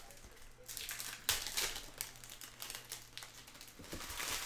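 Foil wrappers of trading card packs crinkling in several short bursts as the packs are handled and opened.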